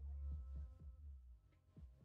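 Quiet room tone: a steady low hum with a few faint, soft thumps.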